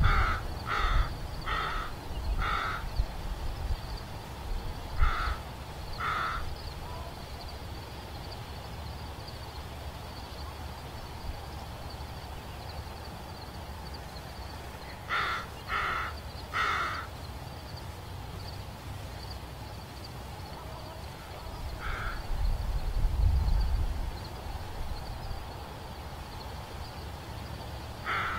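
American crows cawing in short series of harsh caws a little under a second apart: four at the start, two a few seconds later, three about halfway through, a single caw, and two more at the end. A low rumble swells at the start and again about two-thirds of the way through.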